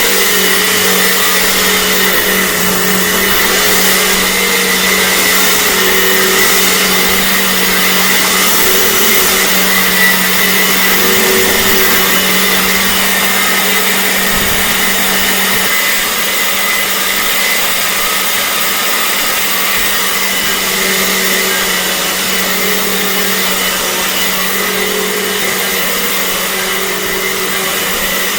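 2011 Dirt Devil Classic vacuum cleaner running steadily at full power, its motor giving a steady hum under a high whine and rushing air.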